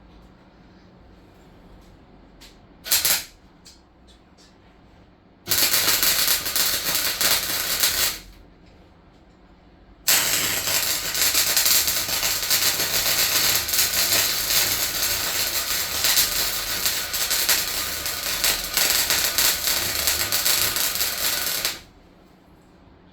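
Welding arc crackling in bursts as the van floor is welded: a short blip about three seconds in, a burst of a couple of seconds, then a long steady run of about twelve seconds that cuts off suddenly.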